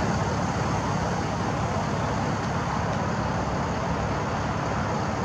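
Steady rush of distant road traffic, even throughout with no distinct events.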